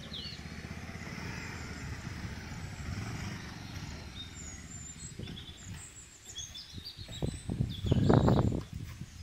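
A motorcycle and a scooter running at low speed, a steady low engine rumble, with birds chirping over it. A brief, louder burst of noise comes near the end as the bikes stop.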